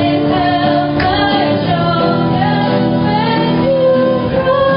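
A group singing to an acoustic guitar, with a woman's voice leading through a microphone in held, gliding notes.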